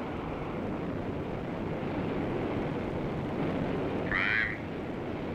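Steady rushing noise of jet aircraft in flight. A short burst of band-limited radio sound comes about four seconds in.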